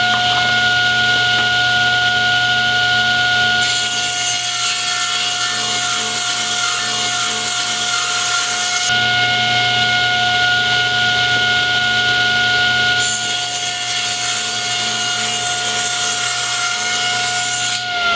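Table saw running with a steady whine while resawing quarter-sawn white oak: the blade cuts through the board about four seconds in until about nine seconds, and again from about thirteen seconds until near the end, after the board is flipped for the second pass.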